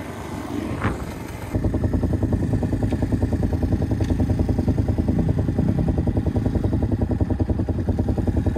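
Motorcycle engine running steadily, loud and close, with a rapid even firing pulse. It comes in suddenly about a second and a half in, after a stretch of wind-like rushing.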